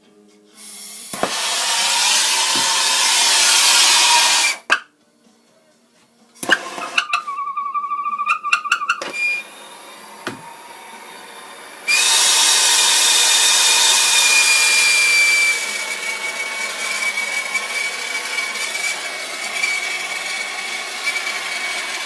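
Plumber's hand-held gas torch burning with a loud steady hiss while heating a copper fitting to sweat a solder joint. The flame goes out about four seconds in, sharp clicks follow, and it burns again with a thin high whistle over the hiss, loudest for a few seconds and then a little quieter.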